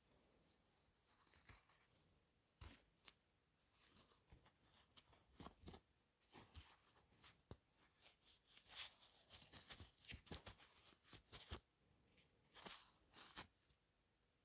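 Faint rustling and crinkling of a paper towel rubbed over the small metal gear plate of a model locomotive chassis as it is wiped clean, with scattered soft clicks, busier in the second half.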